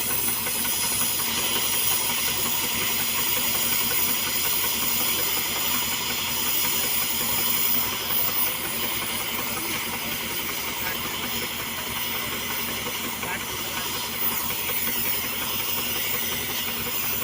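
Gas preheating torch for rail thermite welding, hissing steadily and loudly, with a faint engine hum underneath.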